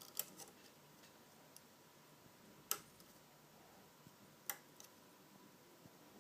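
A few sharp, isolated metallic clicks of a Lishi pick working the wafers of a Vauxhall HU100 car door lock, spaced a second or two apart over near silence.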